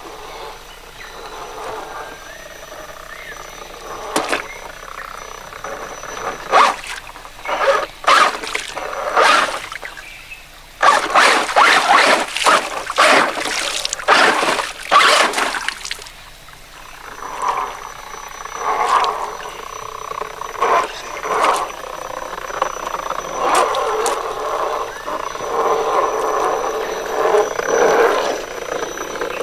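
Traxxas Stampede 4x4 RC truck's electric motor and geartrain whining, rising and falling as the throttle is worked, while its tires splash and clatter through a rocky creek. The splashing comes in sharp strokes and grows loudest from about eleven to sixteen seconds in.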